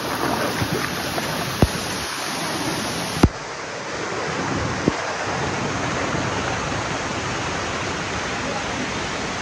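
Small waterfall pouring over rocks into a shallow pool: a steady rushing splash of water, with a few short sharp clicks.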